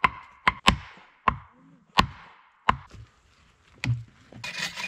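Sharp knocks of a tool striking wood, about seven irregular strikes with a short ring, while a wooden door latch is being made. Near the end a fast rasping of a blade working wood starts.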